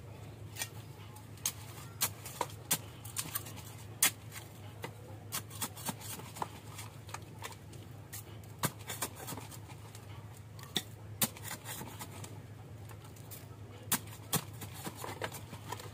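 Irregular sharp clicks and crackles of a bunch of rooted Aglaonema Red Siam cuttings being handled, leaves and stems rustling and snapping, over a steady low hum.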